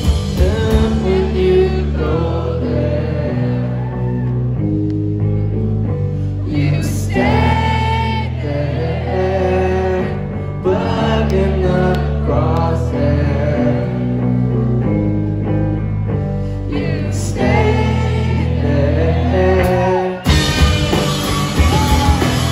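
Live rock band heard from the crowd: a male voice singing over sustained bass and electric guitar chords, with the drums sparse for most of the stretch. Near the end the drums and cymbals come back in and the full band plays loud.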